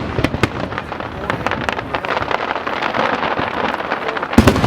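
Aerial fireworks crackling in a dense run of quick pops, with a louder bang about four seconds in.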